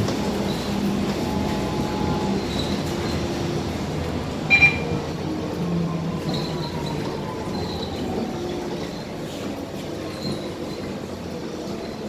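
Cabin noise of a Mercedes-Benz OC500LE city bus on the move: steady engine and drivetrain hum, with a faint whine that falls in pitch as the bus slows. About four and a half seconds in comes a short double electronic beep.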